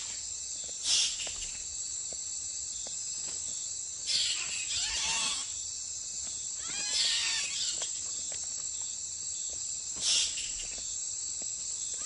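Bats squabbling over a fruit, giving four bursts of high squealing calls that waver and fall in pitch, over a steady chirring chorus of night insects.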